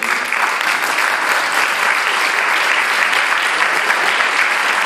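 Audience applauding steadily, a dense sustained clapping from a large crowd.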